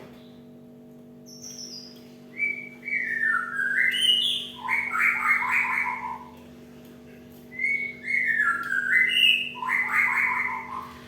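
Cinereous tit (gelatik batu) calling in two phrases. Each phrase is a quick run of whistled notes stepping down in pitch, ending in a dense, scratchy chatter. A faint steady low hum lies underneath.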